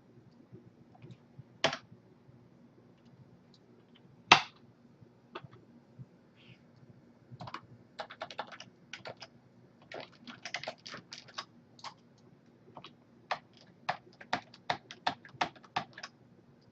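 Typing on a computer keyboard: irregular runs of quick keystrokes through the second half, after two sharper single knocks about two and four seconds in.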